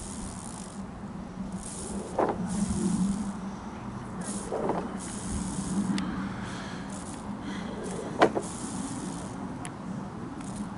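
Boeing 747-400's four Rolls-Royce RB211 turbofans climbing overhead: a steady low jet rumble with a hiss over it. A few sharp clicks stand out, the loudest about three quarters of the way through.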